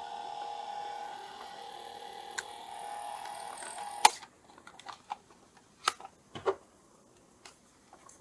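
Vintage cassette player's motor running in rewind with a steady whine, cut off about four seconds in by a loud mechanical clack from the deck's keys, then a few lighter clicks and knocks. The player is faulty and does not really move the tape; the owner is unsure whether a gear broke or popped off or the belt went.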